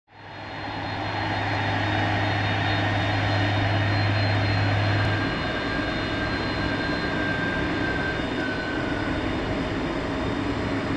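General Electric CF6-80C2 turbofans of an Airbus A300-600R running at the start of the takeoff, a steady jet engine roar. A low hum under the roar stops about five seconds in.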